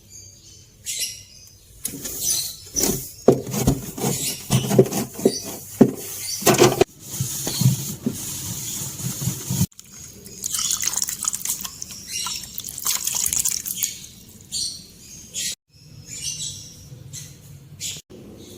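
Water running and splashing with irregular knocks and clatter of things being washed and handled, broken by several abrupt cuts.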